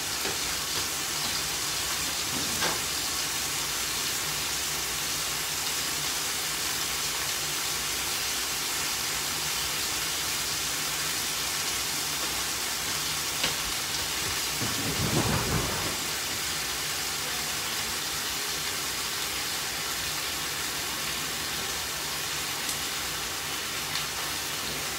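Thin marinated pork slices sizzling steadily in a little oil in a frying pan. A short low rumble about fifteen seconds in.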